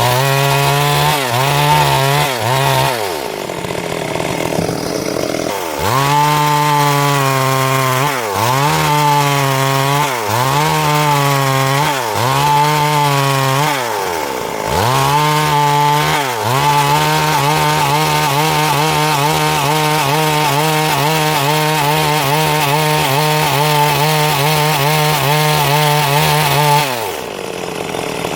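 Chainsaw running under load while ripping a log into planks. Its engine pitch sags and picks back up several times in the first half, then holds steady at high revs for about ten seconds before falling off near the end.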